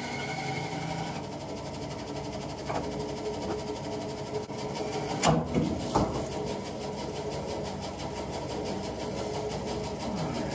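Steady hum of a motor running, with a few knocks about five and six seconds in.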